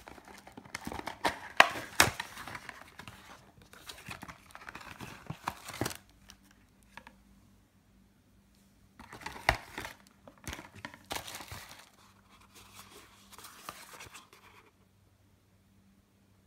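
Cardboard boxes and paper packing in a cosmetics box being handled: crinkling and rustling in bursts, with a few sharp taps and short quiet pauses.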